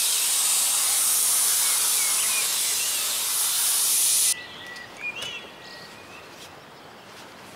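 A loud, steady hiss that cuts off abruptly about four seconds in. It is followed by quiet outdoor ambience with a few short bird chirps.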